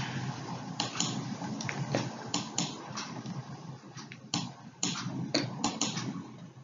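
A series of about a dozen short, irregular clicks over faint steady background noise.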